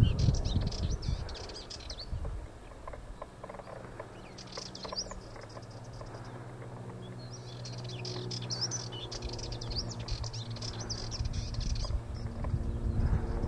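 Sardinian warbler singing quick, high warbling phrases in bursts: one at the start, a short one about five seconds in, and a longer one from about seven to eleven seconds in. A low steady hum runs beneath.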